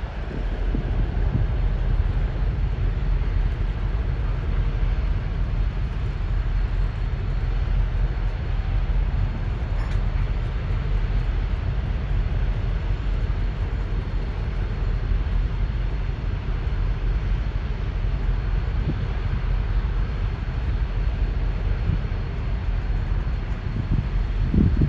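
Train rolling along the track: a steady low rumble.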